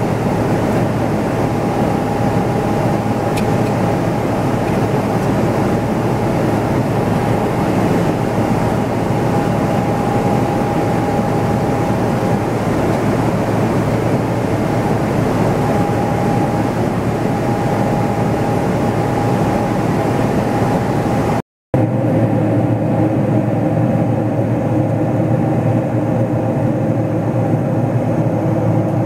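Steady cabin noise of a Boeing 777-300ER climbing out: the even rush of air and its GE90 engines heard from inside the cabin, with a faint steady whine. Near the end the sound drops out for an instant, then the same drone goes on with a few steady low hums.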